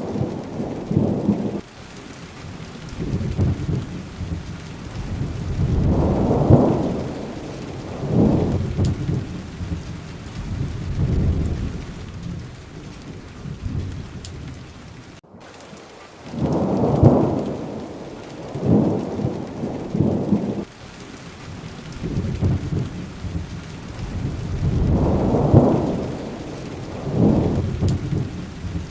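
Steady rain with repeated rolls of low thunder that swell and fade every few seconds. About halfway through, the sound cuts out for an instant.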